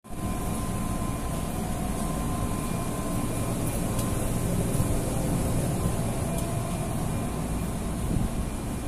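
Steady low hum and rumble inside a stationary electric commuter train car, from its onboard ventilation and electrical equipment, with a faint steady whine above it.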